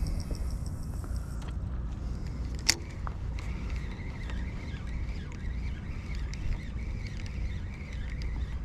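Wind rumbling on the microphone, with one sharp click almost three seconds in and a faint, steady high whine from just after it.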